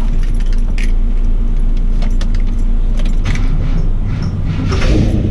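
Ford Falcon's 351 Cleveland V8 running steadily, with scattered light metallic jingling and clicks over it.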